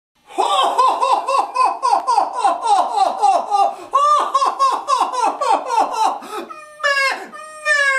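A man's hearty Santa Claus "ho, ho, ho" belly laugh, a long rapid string of short syllables each falling in pitch, broken about seven seconds in by a brief rising call before the laughing goes on.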